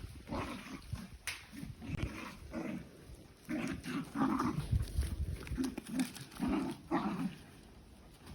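Small dachshund making short, repeated low growls and grunts while playing with a ball, with a few knocks in between. The growling stops about a second before the end.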